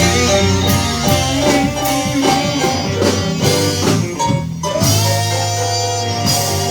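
Live band playing a slow blues, with a lead guitar line over bass and drums. About five seconds in the guitar bends a note up and holds it.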